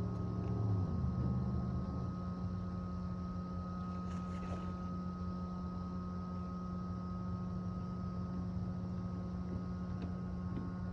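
A vehicle engine running steadily, its pitch dropping during the first second as it slows, then holding an even hum.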